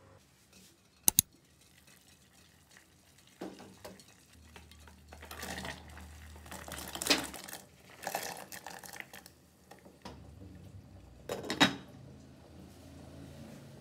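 A sharp double click about a second in. Then chopped vegetables are tipped from a bowl into a glass pot of water, clattering against the bowl and the glass. Near the end a glass lid is set on the glass pot with a few clinks.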